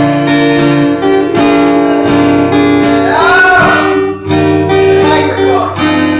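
Guitar strummed in steady repeated chords, with a woman singing a short phrase about halfway through.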